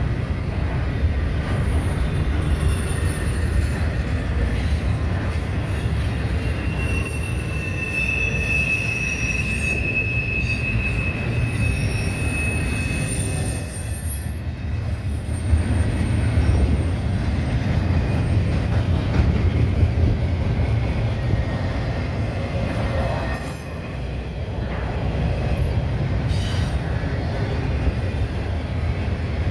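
Double-stack intermodal freight train rolling past: a steady low rumble of steel wheels on rail, with a thin high wheel squeal holding for several seconds about a quarter of the way in.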